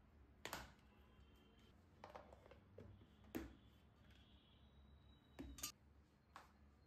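Short, light knocks and clatters of kitchenware being handled on a stone counter: a plastic container and its lid are set down against an enamel bowl. There are about six knocks, the sharpest a little over three seconds in and a close pair about five and a half seconds in.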